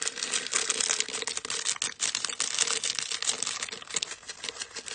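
Rapid crinkling and rattling of a plastic packet of small foam slime beads as it is handled and emptied.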